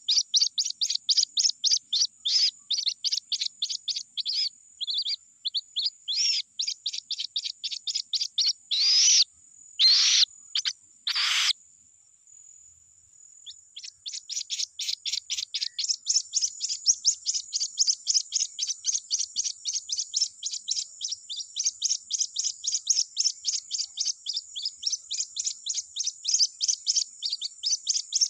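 White-breasted waterhen chick peeping, a rapid train of short, high peeps about three to four a second: its call for its mother. About nine seconds in come a few longer, louder calls, then the peeping stops for about two seconds before it resumes.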